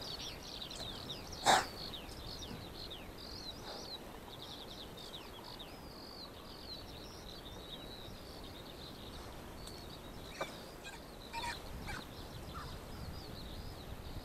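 Small birds chirping and trilling steadily in a high register over an open field, with one sharp click about one and a half seconds in and a few soft knocks near the end.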